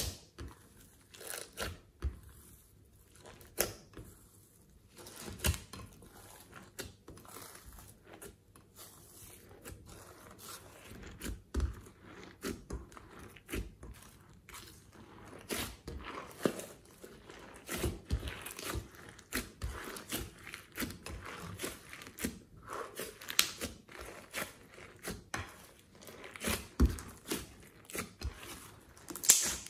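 Glossy slime being folded, stretched and squeezed by hand in a glass dish, with glitter and sequins mixed in: irregular sticky pops and crackles, denser and louder in the second half.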